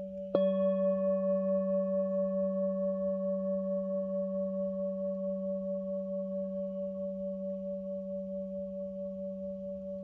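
Metal singing bowl held on the palm, struck once with a wooden mallet about half a second in, then ringing on with a deep hum and several higher overtones. The ring wavers gently in loudness as it slowly fades.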